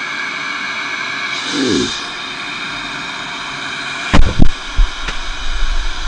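Cordless electric air duster's motor blowing with a steady hiss and whine, with a brief falling squeak about one and a half seconds in and a couple of sharp knocks about four seconds in.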